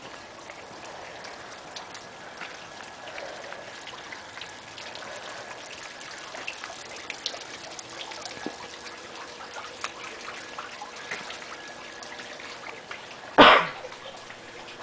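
Light rain falling, with many small scattered drips close by. About thirteen seconds in, one loud, brief noise stands out above the rain.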